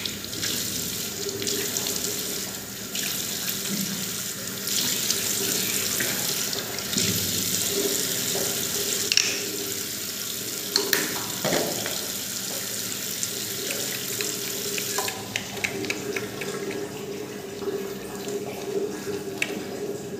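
Water running from a bathroom sink tap into the basin, with hands under the stream. The tap is shut off about three-quarters of the way through, leaving small wet clicks and drips.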